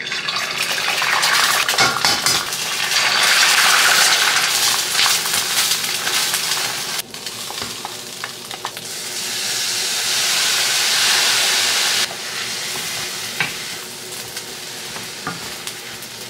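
Egg frying in a hot steel frying pan with a loud steady sizzle, then rice tipped in and stirred with a wooden spatula, sizzling again. The sizzle drops off abruptly about seven seconds in and again about twelve seconds in, carrying on quieter near the end with the spatula scraping and tapping on the pan.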